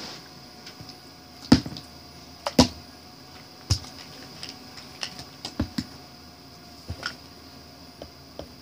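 Plastic bottles being picked up and set down on a hardcover book, a string of sharp knocks and clicks, the loudest about one and a half and two and a half seconds in. A faint steady high whine runs underneath.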